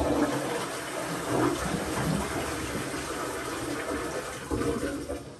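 Toilet flushing: water rushes from the cistern into the bowl in a steady rush that eases off near the end.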